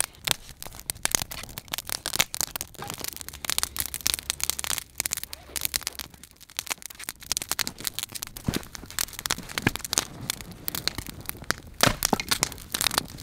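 Freshly lit wood fire of stacked split kindling crackling and popping as it catches, with many sharp irregular cracks.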